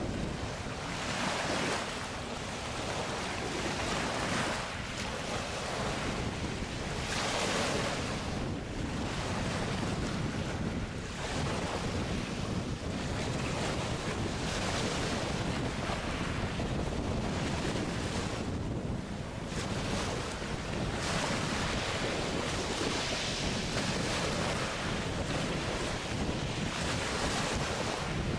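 Wind buffeting the microphone over open water: a steady rushing noise that swells and eases every second or two, with a low rumble underneath.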